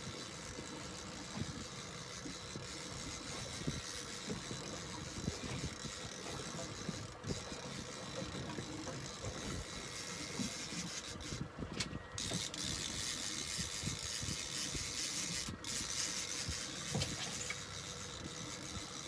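Small fishing boat's outboard engine running steadily under way at sea, with rushing wind and water noise and irregular low buffeting on the microphone.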